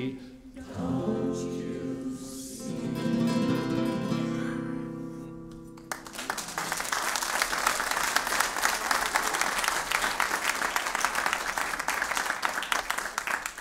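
The last chord of a nylon-string classical guitar and a final sung note ring out and die away. About six seconds in, audience applause breaks out and carries on steadily.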